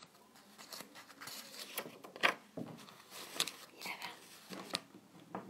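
Faint rustling and crinkling of a sheet of paper being handled, in short scattered rustles and clicks.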